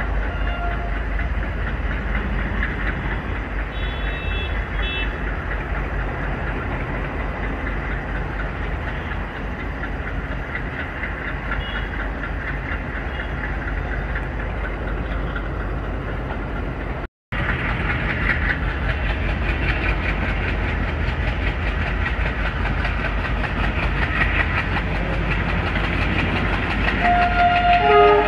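ICF coach running at speed behind a WDM3A diesel locomotive: a steady rush and rumble of wheels on the track, with the locomotive's engine working ahead. The sound drops out for a moment about 17 seconds in, and a few short higher tones come near the end as the locomotive throws up thick exhaust smoke under power.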